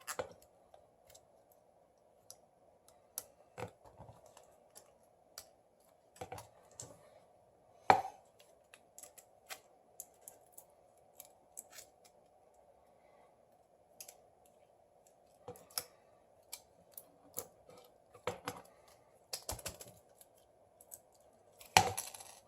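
Scattered light clicks and taps of tools and small phone parts being handled as a Samsung Galaxy S7 Edge's motherboard is pulled back out, with one sharper click about eight seconds in, over a faint steady hum.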